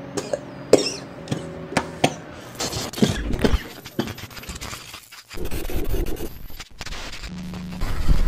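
Editing sound effects: a run of sharp clicks and crackly static bursts over sustained low tones, then noisy thumps and bursts toward the end.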